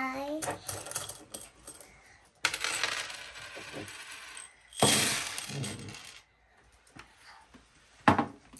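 Small hard objects clattering and clinking in two bursts, followed by a single sharp knock near the end.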